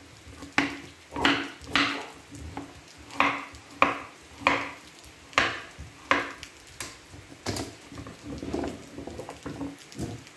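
A kitchen knife chopping raw pumpkin on a cutting board, about ten sharp strokes at a steady pace of a little under two a second, followed by softer, irregular knocks near the end.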